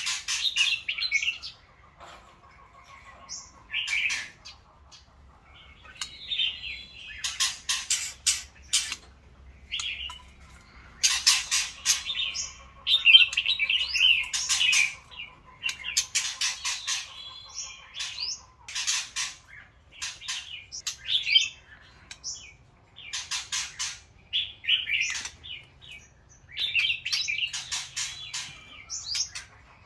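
White-rumped shamas singing: varied whistled phrases broken by short pauses, mixed with bursts of rapid sharp clicking notes.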